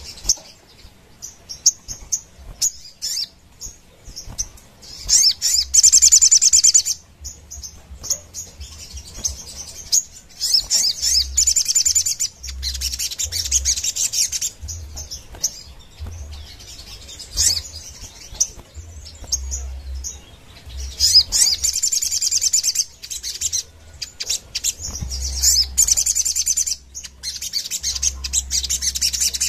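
A caged sogon, a sunbird, singing energetically in high, rapid trilling bursts of a few seconds each, with short chirps between them.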